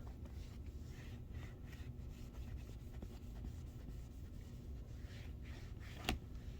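Faint rubbing of a cleaning rag wiped over a Chromebook screen in repeated strokes, with a single sharp click about six seconds in.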